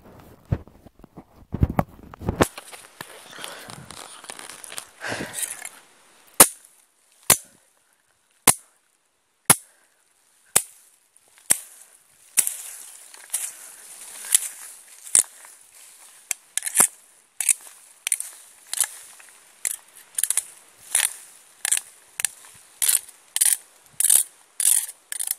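Old machete chopping brush and branches: a run of sharp strikes, about one a second, coming faster toward the end.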